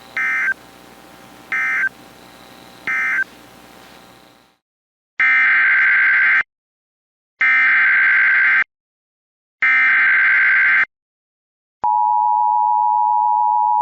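Emergency Alert System data bursts: three short end-of-message bursts over faint weather-radio hiss. After that come three longer buzzing header bursts of about a second each, announcing the next alert. Near the end a steady attention tone starts and holds.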